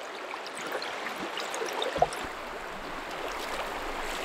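River current running in a steady rush, with one brief low thump about two seconds in.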